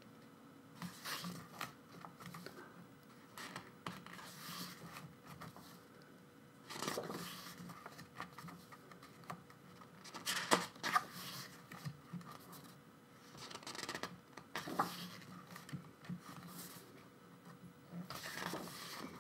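Paper rustling and sliding as the pages of a K-pop album photobook are turned and handled, with a few short sharp taps in the middle.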